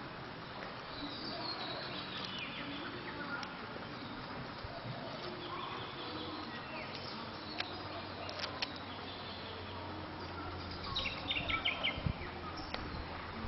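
Birds chirping and calling against steady outdoor background noise, with a quick run of short, high chirps about eleven seconds in.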